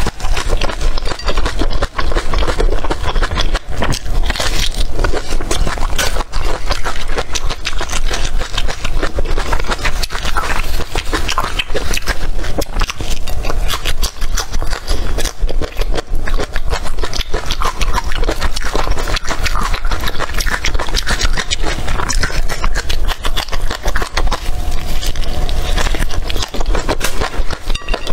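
Close-miked biting and chewing of crisp green chili peppers coated in chili flakes: a dense, continuous crackle of crunches.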